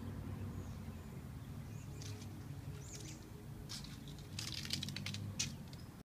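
Small birds chirping: a few short high chirps spaced out, then a quicker run of sharp chirps in the last two seconds, over a low background rumble.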